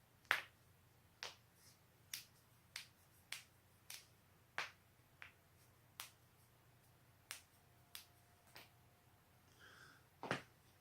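Human joints cracking: a run of about a dozen sharp pops at uneven intervals, the loudest just after the start and another loud one near the end.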